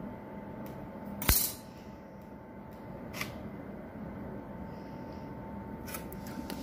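Faint handling sounds of a dough figure being worked with a thin metal pick, with one sharp click about a second in and a couple of soft taps later, over a faint steady hum.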